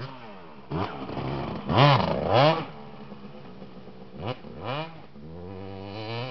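Motocross bike engine revving in quick throttle blips, the pitch rising and falling each time. The loudest pair comes about two seconds in and two more follow about four seconds in, then the engine holds a steadier note near the end.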